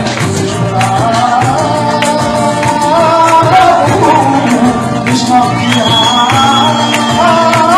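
Loud music with a singer's voice carrying the melody over a steady beat.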